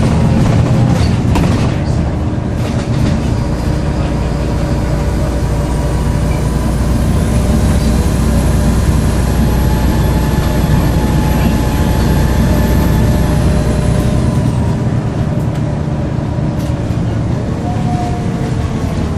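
Volvo B7LA bus's diesel engine pulling under way, with a high turbo whistle that rises about six seconds in, holds, and dies away about fourteen seconds in as the engine eases off. A few sharp rattles come in the first few seconds.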